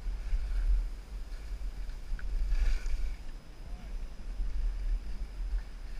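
Wind buffeting an action camera's microphone while skiing downhill, a continuous uneven rumble, with skis hissing over the snow and a brief louder scrape about two and a half seconds in.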